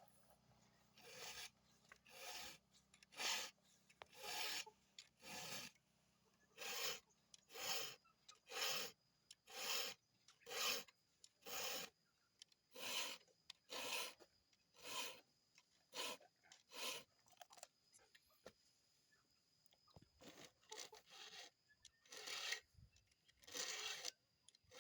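Chainsaw chain being sharpened with a hand file: a steady series of rasping file strokes, about one a second, each a one-way push across a cutter, with a brief pause about three-quarters of the way through.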